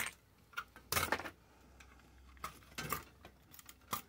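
A circuit board and small metal parts from a dismantled two-way radio being handled and set down on a cluttered metal-strewn workbench: a few short clatters and knocks, the loudest about a second in.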